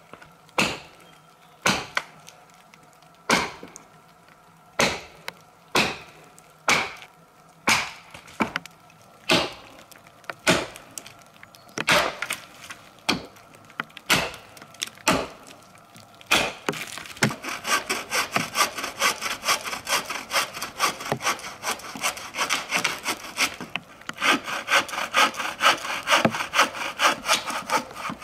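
Axe chopping into a fallen log, about one sharp, splintering blow a second. About two-thirds of the way through it gives way to a hand saw cutting the wood in quick back-and-forth strokes, with a brief pause near the end.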